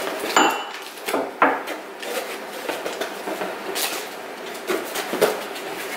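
Gifts being handled and unpacked: a handful of light knocks and clacks of objects set down or bumped, with rubbing and rustling of packaging between them.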